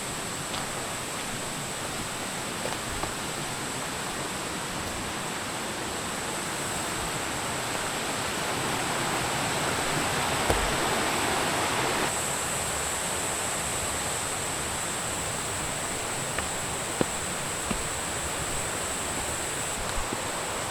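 Mountain stream rushing over rocks, a steady rush that grows louder around the middle and drops back a little after halfway.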